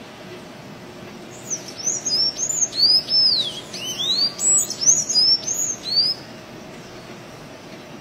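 Sanhaço-azul tanager singing: a quick run of high, squeaky arched notes that starts about a second and a half in, goes on for about four and a half seconds, then stops.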